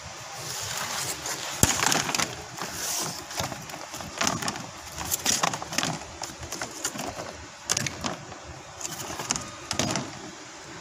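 Dry wood veneer sheets and offcuts being handled, giving irregular rustling, crackling and clacking, with one sharp crack about one and a half seconds in and clusters of clicks near the middle and end.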